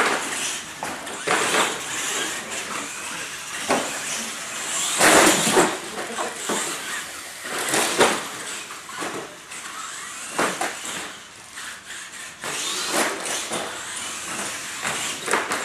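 Radio-controlled monster trucks driving and tumbling on a concrete floor: a steady whine from their motors and gears, broken by repeated knocks and clatters as they land and crash. The loudest crashes come about five seconds in and again around eight and ten seconds.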